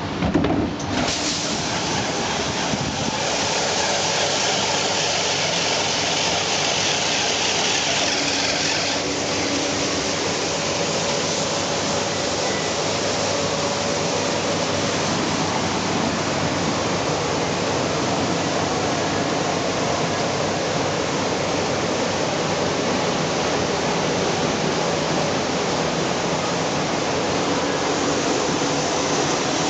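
Winterhalter GS501 three-phase hood-type dishwasher: the stainless hood clunks shut, then the wash cycle runs with a steady rush of water spraying inside the closed hood. The hiss is brighter for the first several seconds and settles at about nine seconds in.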